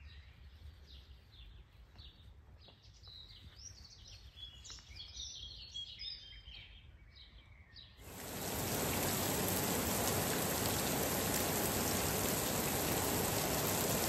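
Small birds chirping and singing, many short calls. About eight seconds in, this cuts suddenly to a loud, steady hiss of heavy rain.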